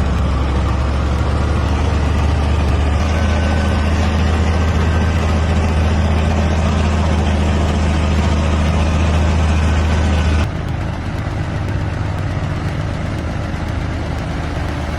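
Heavy truck engine running steadily with a deep low note. About ten and a half seconds in, it drops suddenly to a quieter, lighter running sound.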